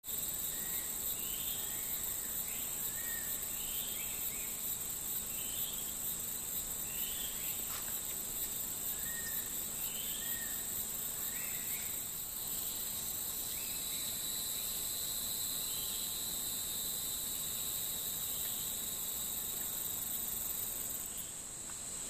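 Steady, high-pitched chorus of insects, with short chirped notes repeating about once a second through the first half.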